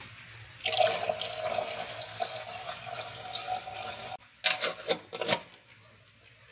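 Tap water pouring into an aluminium kettle in a stainless-steel sink for about three and a half seconds, with a steady ringing tone from the filling kettle, then stopping. A few metal clinks follow as the aluminium lid is set on the kettle.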